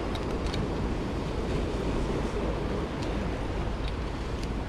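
Steady wind buffeting the microphone over the rush of ocean surf, with a few faint ticks.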